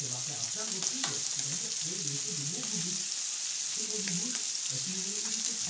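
Sausages, peppers and onions sizzling steadily on a plancha griddle, with a few light clicks as metal tongs turn the food.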